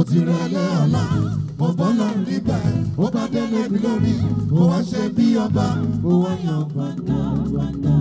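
Live gospel praise music: a singer's voice bending and gliding in pitch over a band with a steady bass line.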